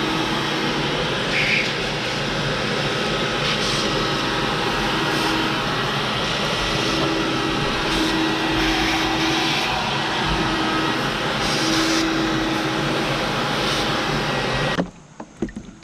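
A loud, steady motor-driven machine running with a constant rushing noise, cutting off abruptly near the end.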